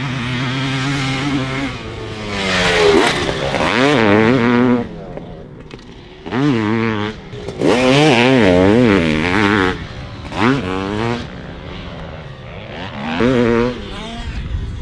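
2006 Honda CR500's single-cylinder two-stroke engine under hard riding, its pitch rising and falling through repeated bursts of full throttle with short lulls where the rider rolls off between them.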